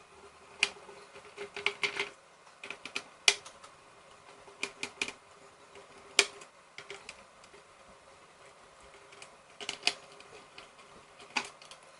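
Precision screwdriver backing small screws out of a GTX 660 Ti graphics card: scattered light clicks and ticks at irregular intervals, a few coming in quick clusters.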